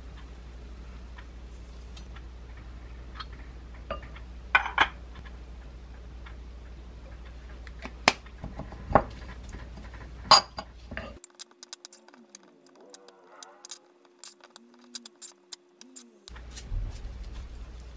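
A metal knife and spoon knocking and clinking against a ceramic bowl as chopped chives, gochujang and sesame oil go onto rice: a few sharp clinks, then a run of quick scraping clicks as the spoon stirs the mixture.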